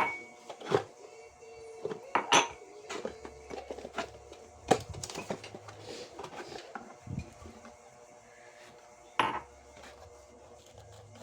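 Kitchenware being handled: a series of sharp clinks and knocks, some ringing briefly, frequent through the first seven seconds, then one more knock about nine seconds in.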